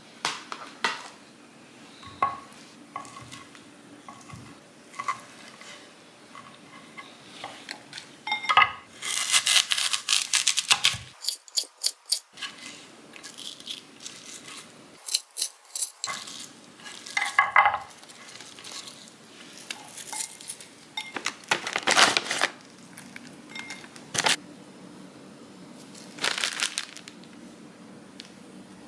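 Salad being made by hand: a plastic food container and its lid handled against a ceramic bowl, a knife cutting an apple on a wooden cutting board, and packaging rustling. These come as separate clatters, taps and short rustles, with brief quiet gaps between them.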